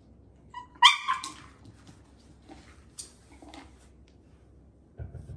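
A dog gives a brief high-pitched yip, then a louder sharp yelping bark about a second in, demanding a treat from its treat-dispensing toy. A few soft low thumps follow near the end.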